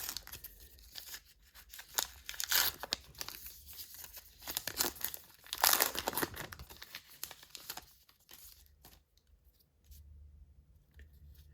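A trading-card pack wrapper being torn open and crinkled in irregular bursts, loudest about two to three seconds in and again around six seconds, then dying down to faint handling after about eight seconds.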